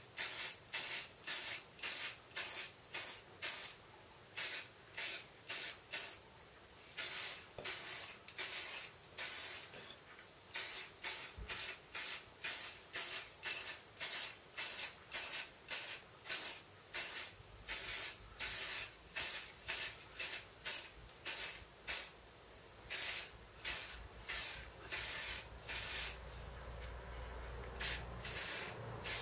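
Aerosol spray can putting a coat on a shotgun's pump forend, sprayed in short bursts about two a second, with a few longer passes.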